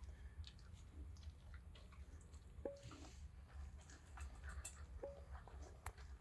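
A pet chewing and crunching dry dog-food kibble, heard as faint scattered clicks and crackles, with two short pings, the second about two and a half seconds after the first.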